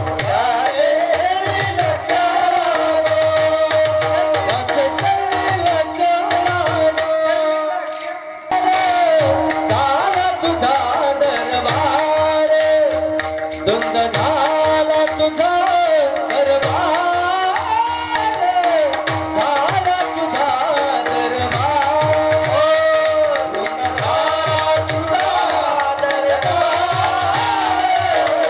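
Devotional kirtan singing: a sung melody over a steady held drone, with a drum and jingling percussion keeping a steady beat. The music breaks off briefly about eight seconds in.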